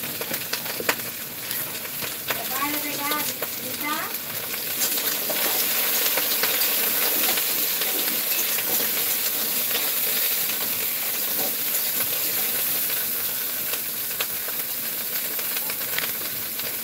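Food frying in hot oil in a pan: a steady sizzle with fine crackles, growing louder about five seconds in.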